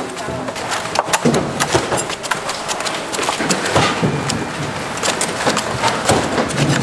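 Irregular sharp knocks and clatter, several a second, over a busy background.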